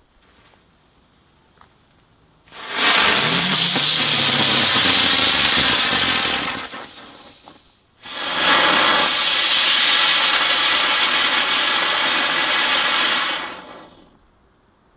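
Small consumer firework fountain burning with a loud, steady hiss, twice: one burst of about four seconds that fades out, then after a short gap a second that starts abruptly and runs about six seconds before fading.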